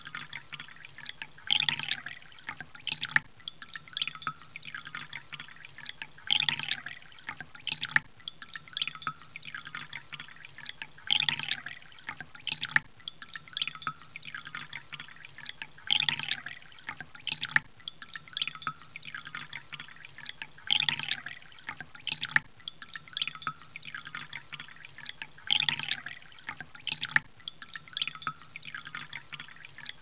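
Water poured into a drinking glass: splashing and plopping with many small sharp drips, a sound-effect loop whose busiest splash comes back about every five seconds.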